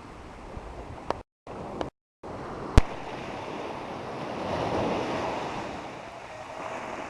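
Ocean surf washing onto the beach, with wind buffeting the microphone; the wash swells about halfway through and then eases. In the first three seconds the sound is broken by brief dead-silent gaps and a few sharp clicks, the loudest just under three seconds in.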